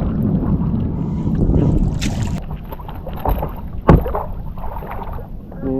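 Wind rumbling on the microphone in a snowstorm, with a short hiss about two seconds in and a sharp knock a little before four seconds in.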